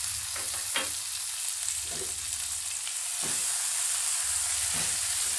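Chopped shallots, garlic, chili, tomato and spring onion sizzling steadily in hot oil in a nonstick pan, with a spatula stirring them a few times.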